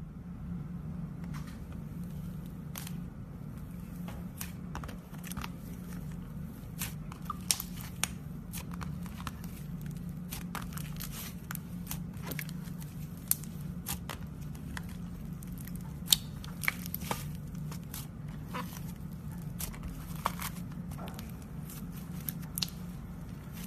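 Slime being squeezed and poked by hand, giving scattered small crackles and pops at irregular spacing over a steady low hum.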